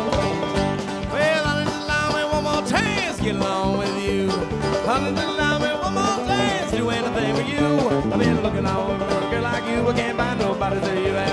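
Live bluegrass-rock band playing an instrumental jam: bass, drums and strummed acoustic guitar under a lead line of bent, gliding notes, with one steep upward bend about three seconds in.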